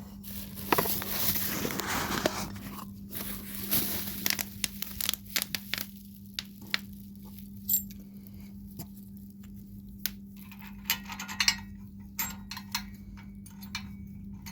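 Rustling handling noise for the first few seconds, then scattered small clicks and knocks of steel washers, nut and bolt being handled on a minibike frame's neck, over a steady low hum.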